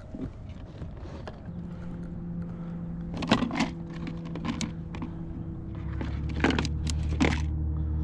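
Clear plastic tackle box of fish-tagging gear being opened and handled: a few sharp plastic clicks and clatters as the lid and contents are moved. A steady low hum runs underneath, thickening about six seconds in.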